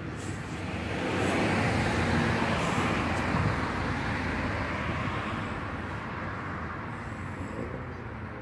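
A road vehicle driving past on the street, its rushing tyre and engine noise swelling over the first couple of seconds and then slowly fading away.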